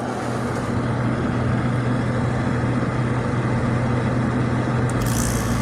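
1988 Emerson Quiet Kool 7600 BTU window air conditioner running with its compressor on: a steady low hum under the rush of the fan, with a hiss rising near the end.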